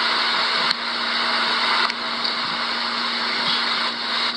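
Steady loud hiss with a constant low hum underneath, broken by two brief clicks with small dips in level, about a second in and near two seconds.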